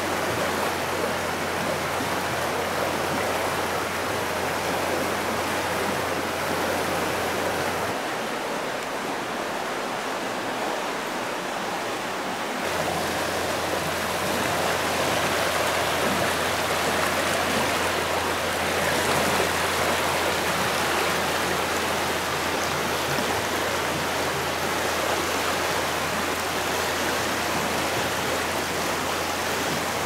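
Mountain stream rushing over rocks: a steady water noise whose tone shifts slightly twice, about eight and about thirteen seconds in.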